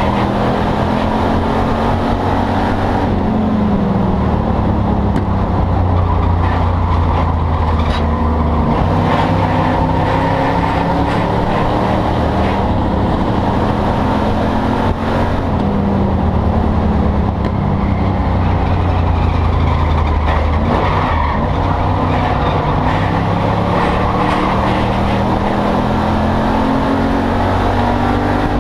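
Enduro race car's engine at race pace, heard loud from inside the stripped-out cabin. The engine note climbs and falls in long sweeps as the car speeds up and slows again around the oval.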